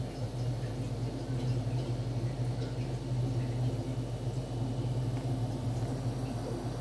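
Steady low mechanical hum, unchanging throughout, with a few faint ticks above it.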